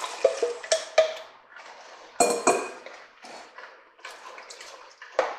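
Drained red beans poured from a metal bowl into a pot of broth, sliding out and plopping into the liquid. A series of sharp knocks and clinks of the dishes runs through it, the loudest about two seconds in and again near the end.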